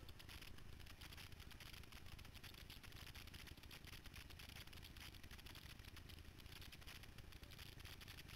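Near silence: a faint, even hiss with light crackling and a low rumble underneath.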